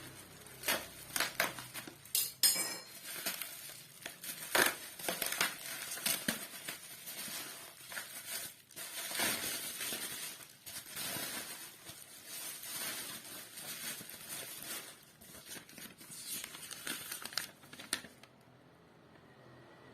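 Packaging being opened and handled: crinkling and rustling with sharp clicks and knocks, stopping about eighteen seconds in.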